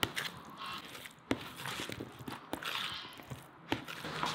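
Metal spoon stirring a mayonnaise-dressed beetroot and cheese salad in a plastic bowl: wet stirring noise with a few sharp knocks of the spoon against the bowl, about a second apart.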